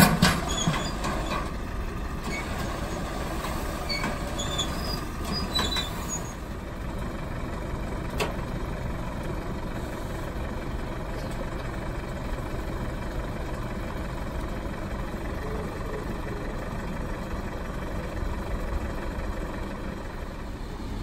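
Heavy truck engine idling steadily amid street traffic noise, after a brief loud clatter at the very start. A few faint high squeaks come in the first few seconds and a single sharp click about eight seconds in.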